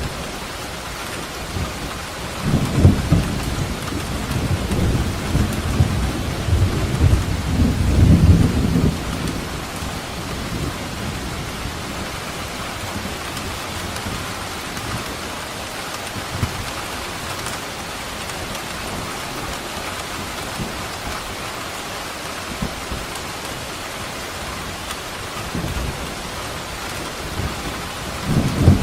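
Steady rain falling, with a long rumble of thunder rolling from about two seconds in until about nine seconds, and another thunder rumble starting near the end.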